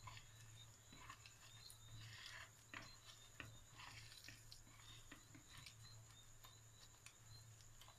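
Boiled potato cubes being mashed by hand in a plastic bowl: faint, irregular soft squishes and clicks over a steady low hum.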